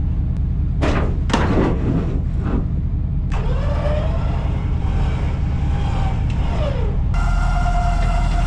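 Truck engine running with a steady low rumble. A few short knocks come in the first couple of seconds. About three seconds in, the revs rise, hold for a few seconds, then fall back.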